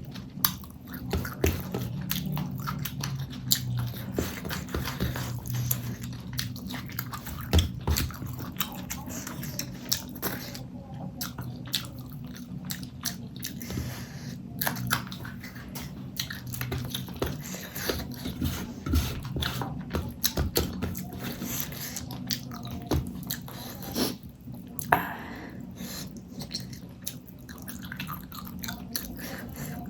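Close-miked chewing and biting while eating fish curry with rice: a dense, irregular run of wet mouth clicks and smacks.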